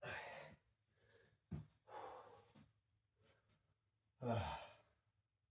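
A man breathing out heavily three times, sighing as he catches his breath after a set of push-ups and planks.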